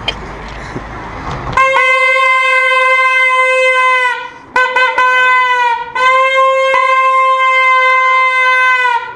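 Plastic stadium horn (corneta) blown in a steady single-pitched honk for about two and a half seconds, then a couple of short toots, then a second long honk of about three seconds.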